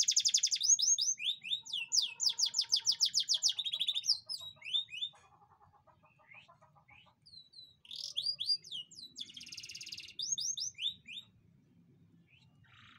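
Domestic canary singing: fast trills and quick down-slurred whistled notes. The song breaks off for a few seconds in the middle, then starts again.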